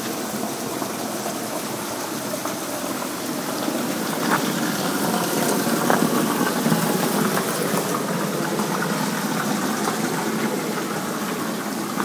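Steady rush of water from a small waterfall and stream, a little louder midway.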